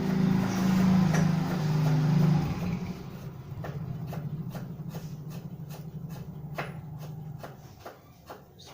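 A motor vehicle engine running with a steady low drone, loud at first and dying away about two and a half seconds in, leaving a fainter hum. Scattered light clicks and taps follow.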